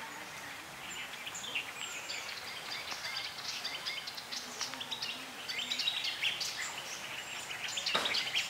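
Many birds chirping and calling at once, a busy chorus of short, high chirps and quick whistles, with a brief louder burst of noise near the end.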